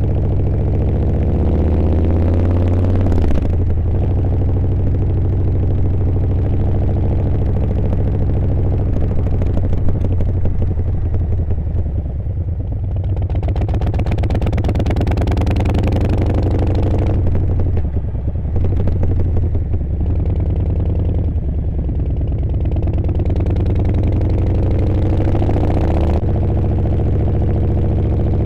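Harley-Davidson Fat Boy 114's Milwaukee-Eight V-twin running under way, its revs repeatedly rising and dropping back as the bike accelerates and shifts gears.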